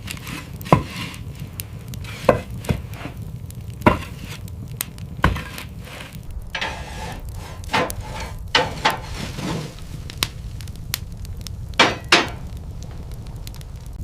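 About a dozen sharp, irregularly spaced knocks and cracks over a steady low rumble.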